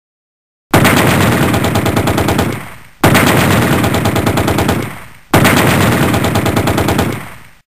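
Machine-gun sound effect: three bursts of rapid automatic fire, each about two seconds long and trailing off, the same sample played three times back to back.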